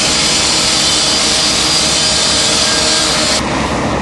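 Power saw cutting into a metal roll-up door, a steady high-pitched grinding whine that stops abruptly near the end.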